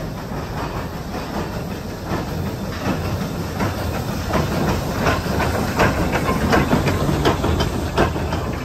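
Saddle-tank steam locomotive pulling out of a tunnel and passing close by, working with steam hissing. Its wheels make a run of sharp clacks over the rail joints as it draws level, growing louder.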